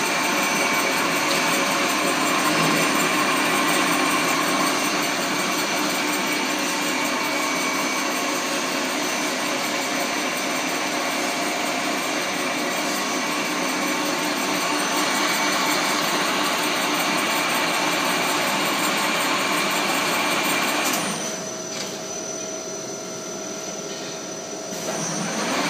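Angeli AV-TZ vertical rotary coiler running, its rotating head winding thin wire into a coil with a steady mechanical noise made of many held tones. About four seconds before the end the noise drops noticeably for a few seconds, then comes back up.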